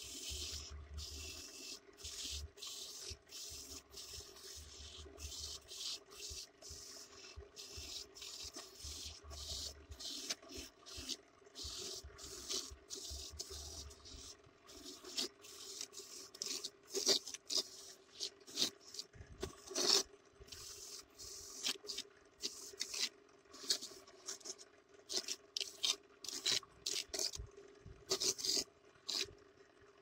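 Homemade coconut grater driven by a salvaged washing-machine motor: a steady motor hum under a long run of rasping scrapes as a coconut half is pressed against the spinning grating disc. The scrapes grow sharper and more uneven after about fifteen seconds.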